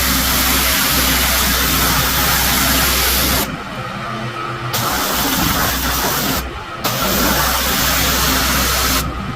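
Pressure washer running, its high-pressure spray hissing loudly over the steady hum of its engine. The spray cuts out for about a second a third of the way in, briefly again past the middle, and once more near the end, while the engine keeps running.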